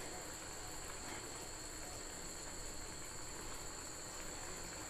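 Faint steady room noise with a high-pitched whine in two steady tones; no distinct event stands out.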